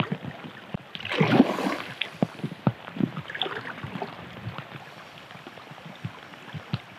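Water splashing as a hooked coho salmon thrashes at the river's surface: a louder rush of splashing about a second in, then scattered small knocks and sloshing.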